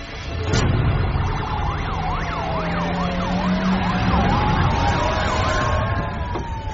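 Police car sirens: one in a fast yelp, its pitch rising and falling a few times a second, over a slower wailing siren, with a low vehicle rumble beneath.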